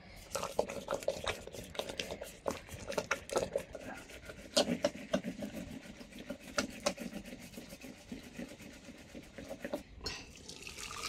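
A thin rod twirled between the palms whisks a watery mixture in an aluminium pressure cooker, rattling and clicking against the pot's sides in quick, uneven strokes. Near the end, the thin mixture is poured into a metal pot.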